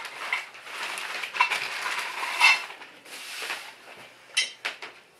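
Clear plastic packaging crinkling and rustling as it is handled, with small clicks, then two sharp knocks about four and a half seconds in.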